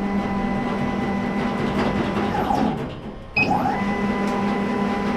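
Laser engraver's motorized bed being lowered: its motors hum steadily with a whine that glides up as each move starts and down as it stops. It stops about three seconds in and starts again moments later.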